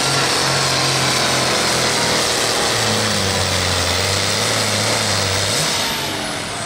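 John Deere 4320's six-cylinder diesel running hard under load as the tractor pulls a weight-transfer sled. Its pitch drops about three seconds in, and it eases off a little near the end.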